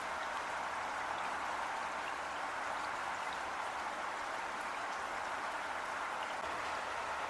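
Heavy rain falling steadily: an even, constant hiss with faint scattered drop ticks.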